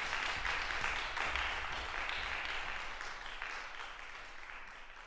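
Audience applauding, the clapping thinning out and fading away over the last couple of seconds.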